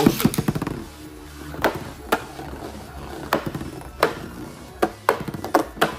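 Ripcord launcher ripped to launch a counterfeit Metal Fight Beyblade Wing Pegasus with a white flat tip, a loud zip as it lands. The top then spins and skitters across the plastic stadium with a steady rattle, clacking sharply against the stadium wall every half second to a second.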